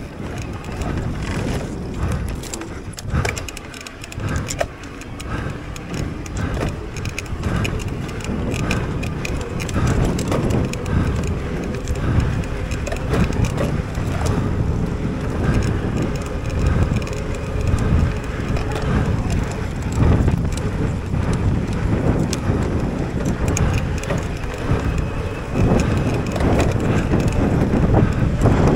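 Mountain bike ridden fast down a dirt trail, heard from an on-bike or helmet action camera: tyres on dirt, the bike rattling over bumps, and wind on the microphone.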